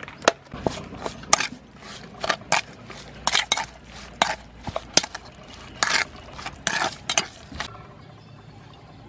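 Metal spoon scraping and clinking against a stainless steel bowl as minced meat is stirred and mixed, in a quick, irregular run of strokes that stops near the end.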